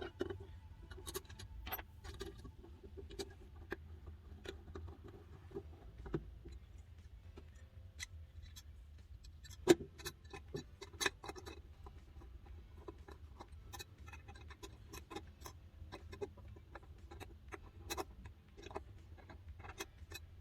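Scattered small clicks and taps of camera cage and handle parts being handled and fitted together, with a sharper knock about ten seconds in.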